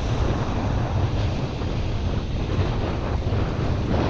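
Wind buffeting the microphone over the wash of small waves breaking along the shore: a steady, loud rushing noise with a heavy low rumble.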